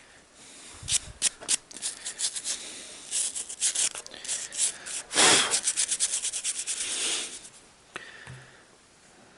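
Quick rubbing and scrubbing strokes as dirt is cleaned off the stator of a GAZelle heater fan motor. The strokes come faster and thicker in the middle and stop near the end.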